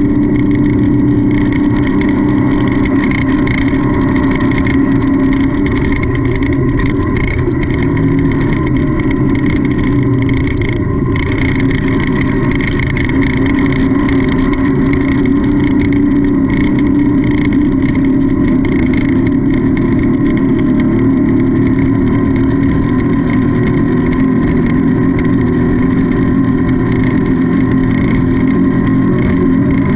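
Off-road race car's engine heard from onboard during a race, running hard at steady high revs with small rises and dips in pitch.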